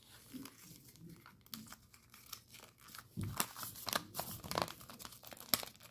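A sheet of 15-pound paper being folded and creased by hand into a jet fold: irregular soft crackles and rustles, the loudest about three seconds in.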